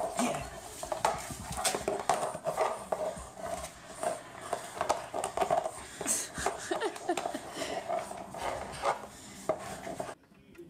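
Plastic frisbee knocking and scraping on a hard floor in quick, irregular clicks as a small dog grabs and tugs it under a sofa, over a continuous wavering hum.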